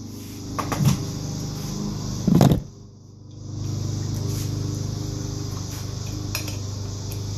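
Hand tools being handled as a 19 mm socket is fetched: a few light clinks, then a louder metal clatter about two and a half seconds in, over a steady low hum.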